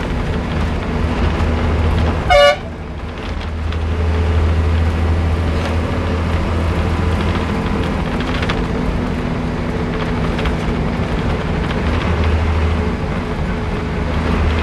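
Bus engine running steadily, heard from inside the cabin while on the move. About two seconds in there is one short, loud horn toot.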